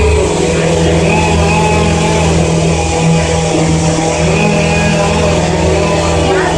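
Engine running steadily at a constant speed, with a low hum that wavers slightly in strength.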